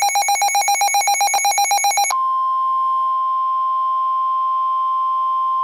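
Emergency alert tones: a rapidly pulsing, bell-like electronic alert tone that about two seconds in switches abruptly to a steady single-pitch warning alarm tone of the kind used by NOAA Weather Radio ahead of a severe thunderstorm warning.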